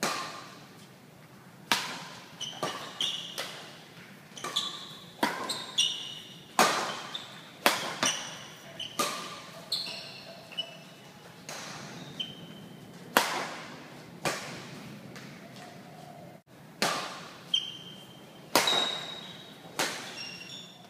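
Badminton rally: sharp cracks of rackets hitting a shuttlecock, roughly one a second, each with a short echo, and brief high squeaks of shoes on the court floor between hits.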